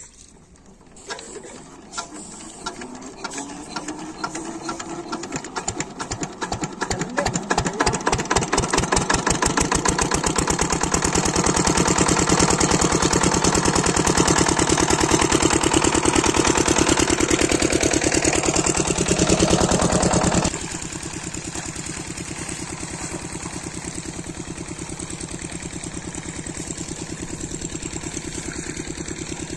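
A 12 hp single-cylinder diesel irrigation pump-set engine being hand-cranked. Its knocks quicken as it picks up speed, then it catches and runs with a loud, fast, steady beat. About twenty seconds in the sound drops suddenly to a quieter, steady running.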